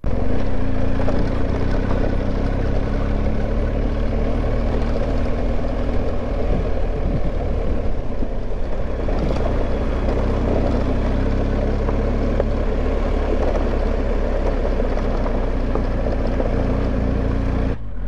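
Motorcycle under way: its engine running steadily with an even rush of noise over it, with no pauses.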